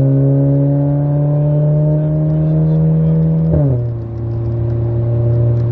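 Audi B9 A4 with a modified exhaust, heard from inside the cabin under acceleration: a steady drone whose pitch creeps slowly upward, then drops at an upshift about three and a half seconds in and holds lower.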